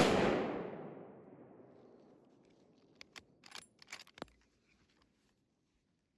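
A single rifle shot whose echo dies away over about a second and a half, followed by a few faint sharp clicks about three to four seconds in.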